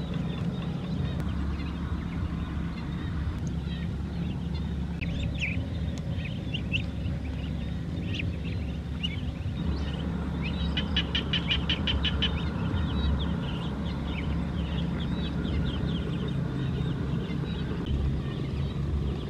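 Ducklings peeping in short high chirps over a steady low rumble. About ten seconds in, a quick run of rapid chirps lasts for about two seconds.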